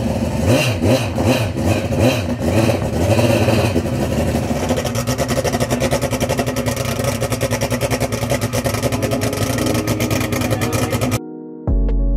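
An engine revving in a series of short rises and falls, then running more steadily with a rapid pulse. It cuts off abruptly near the end, and electronic music starts.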